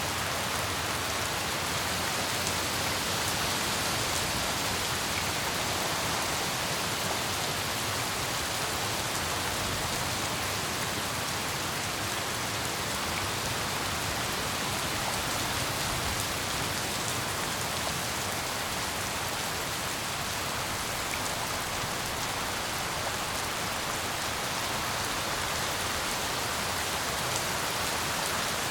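Steady rain falling, a dense, even hiss of countless drops that holds the same level throughout.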